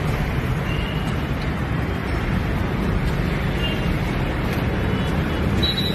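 Steady outdoor street noise: a low rumble of wind buffeting the microphone mixed with distant city traffic, with a few faint brief high tones.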